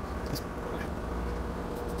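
Steady low machine hum with a faint steady whine, and one or two light clicks.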